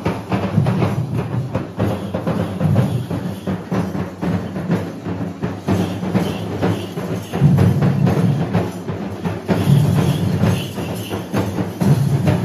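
Kerala temple-festival procession percussion: loud, fast, dense drumming that keeps going without a break.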